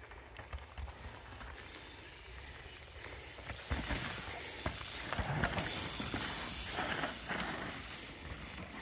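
Crussis E-Full 10.10 Pro e-mountain bike riding downhill on a muddy trail: tyre rush with knocks and rattles of the bike over bumps, getting louder and busier about three and a half seconds in.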